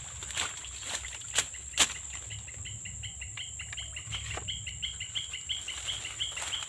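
A few sharp slashes of a machete cutting through swamp vegetation in the first two seconds. Then a chirping call repeats about four times a second, over a steady high-pitched insect buzz.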